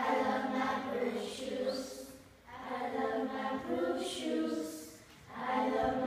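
A group of young children singing a short song together, unaccompanied, in three phrases with brief breaks between them.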